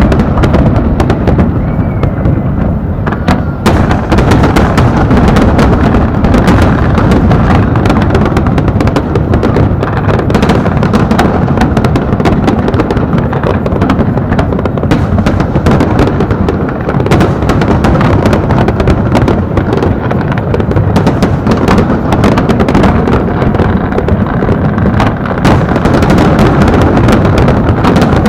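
Large fireworks display: a loud, dense, continuous barrage of firework bangs, one burst overlapping the next.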